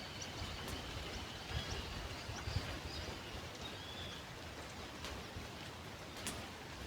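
Riverside nature ambience: a steady rushing background with several short, high bird chirps scattered through it and a few low bumps of wind on the microphone.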